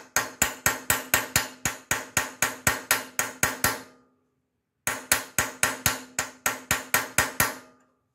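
Hammer tapping a blunt steel punch that drives a loose valve guide back into its bore in the aluminum cylinder head of a Briggs and Stratton engine: quick even blows about five a second, in two runs with a pause of about a second between, each with a ringing note. These are the final taps to make sure the guide is fully seated at the bottom of its blind hole.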